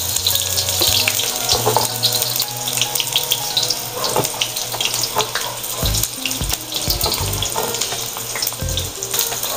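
Sliced onions sizzling in hot oil in a stainless steel wok: a steady hiss, with a metal slotted spatula clicking and scraping against the wok as they are stirred.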